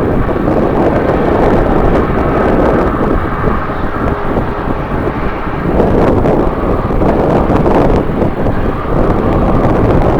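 Strong gusting wind buffeting the microphone, loud and uneven, with the rumble of a jet airliner's engines underneath.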